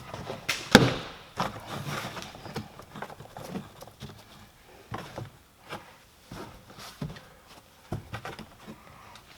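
Plastic door trim of an Opel Corsa being worked loose by hand: scattered clicks and knocks of plastic clips and panel parts, the sharpest about three-quarters of a second in.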